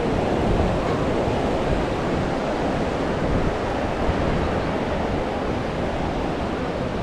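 Ocean surf washing steadily on the shore, with wind gusting on the microphone.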